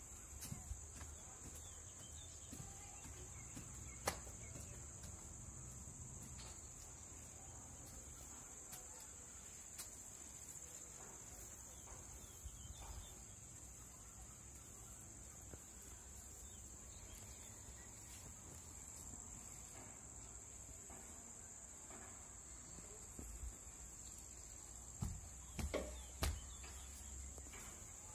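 Faint, steady, high-pitched insect chirring runs on without a break. A few sharp knocks come near the end.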